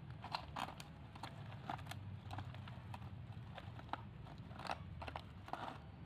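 Irregular light clicks and knocks of small hard objects, a dozen or so, over a low steady hum.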